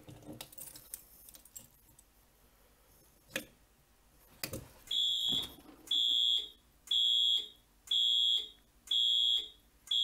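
Fire alarm horn pulsed by a Simplex 4010 panel in walk test: short high-pitched tones about once a second, starting about five seconds in. The pulses count out the number of the point just activated, a key switch on point 6. Before them come a few faint key clicks and a couple of knocks.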